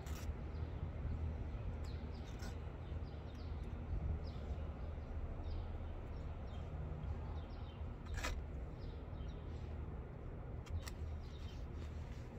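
Fabric rubbing on the phone's microphone, making a steady low rumble, with a few sharp clicks and faint, short high chirps scattered through it.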